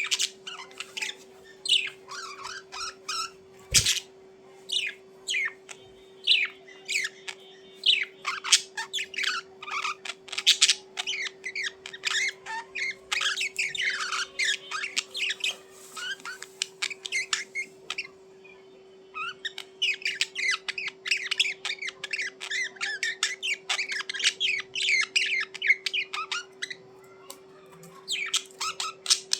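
Budgerigars chirping and chattering in many short, quick calls, with a brief pause a little past the middle before a dense stretch of chatter. A sharp click sounds about four seconds in, and a steady low hum runs underneath.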